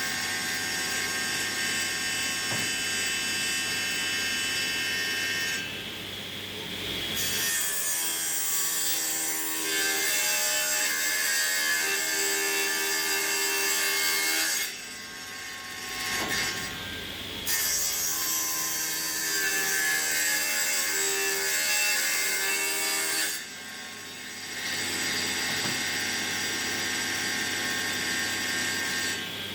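Table saw running and ripping boards, the blade trimming a blade-width off each board's edge to straighten it for jointing. The sound drops away briefly a few times between stretches of cutting.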